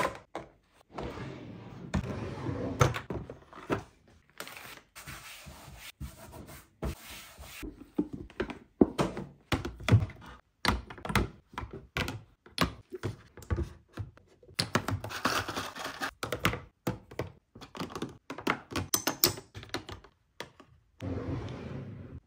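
Small cosmetic items and bottles clicking and knocking as they are set into clear plastic drawer organizers, with soft handling rustles in between. Near the end a drawer slides shut.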